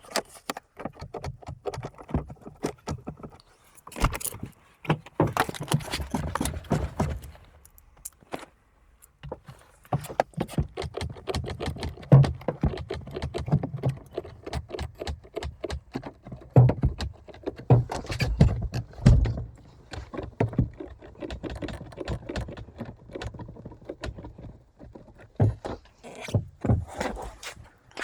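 Irregular metallic rattling and clicking from a car, coming in uneven bursts with occasional low thumps and a short lull about eight seconds in.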